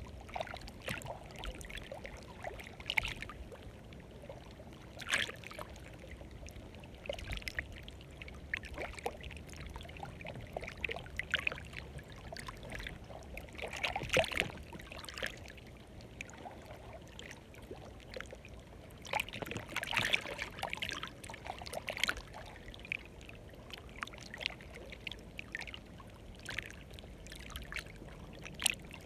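Water lapping and splashing at the shore in small, irregular washes, with a steady watery background.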